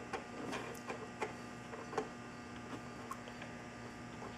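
Light metal clicks and taps as a wrench works a side-mirror mounting nut loose inside a car door, a handful of irregular clicks in the first two seconds, then fainter ones, over a faint steady hum.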